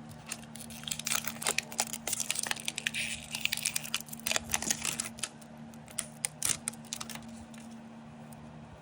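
Plastic wrapping crinkling and tearing as it is peeled off an L.O.L. Surprise toy ball by hand, in quick crackles that thin out near the end.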